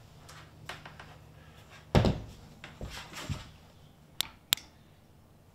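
Hand-tool handling knocks as a crimp tool is set on a water-line fitting, with one louder thunk about two seconds in. About four seconds in come two sharp metallic clicks a third of a second apart as the tool's handles are squeezed.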